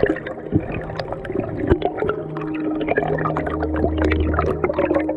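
Underwater sound picked up by a diving camera: dense, irregular clicking and crackling. Under it, background music plays long held low notes.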